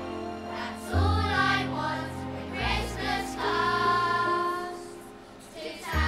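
Children's choir singing together over an instrumental accompaniment of held bass notes. The voices come in about a second in and fall away briefly near the end.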